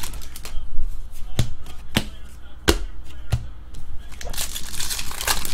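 Hockey card pack being opened and its cards handled: four sharp clicks spread over the first half, then a stretch of crinkling from the foil pack wrapper near the end.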